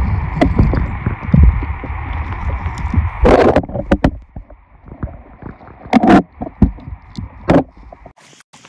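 River water splashing and sloshing, with three louder splashes about three, six and seven and a half seconds in, over a heavy low rumble.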